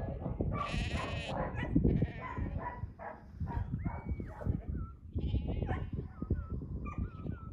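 Sheep bleating repeatedly as a border collie drives the flock, with a handler's short shepherd's-whistle commands from about halfway through.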